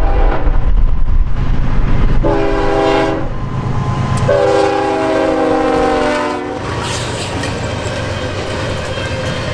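Norfolk Southern GE ES44DC diesel locomotive sounding its air horn, with the end of one blast, a short blast and a long blast whose pitch sags slightly as it passes. This is the close of the grade-crossing horn signal. Under the horn the engine rumbles, and after the last blast the loaded coil steel cars roll by with a steady rail rumble and clatter.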